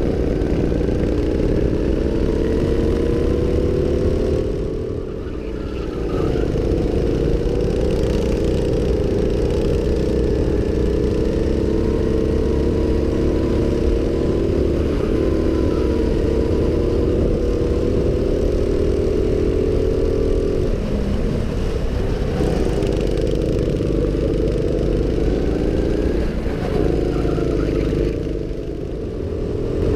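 Go-kart engine running hard at high revs, heard from on board the kart; the note eases off and drops in level briefly about five seconds in and again near the end, then picks back up.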